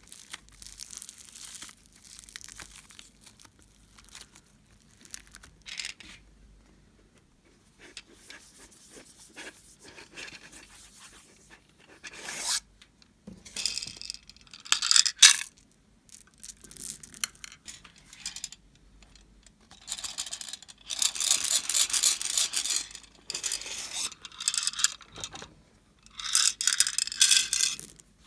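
Homemade slime being squeezed, stretched and pressed by hand, crackling and popping in irregular bursts. The longest and loudest stretch of crackling comes about two thirds of the way through.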